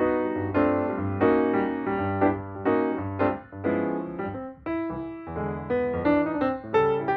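Background piano music with a steady rhythm of struck chords over a bass line.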